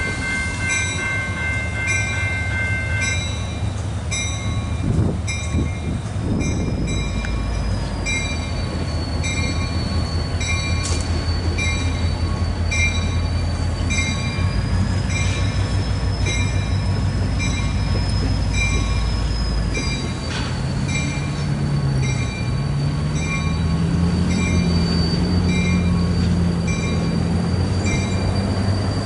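EMD GP-series diesel locomotive moving slowly through a curve: the engine running with a steady low drone and the wheels squealing in a thin high tone, while a bell rings steadily about once every 0.7 seconds. About two-thirds of the way through, the engine's pitch climbs as it throttles up.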